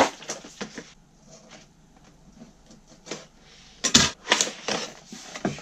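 Small cardboard product box being handled and opened by hand: light taps and rustles, then a cluster of louder knocks and scrapes about four seconds in as the box is set on the table.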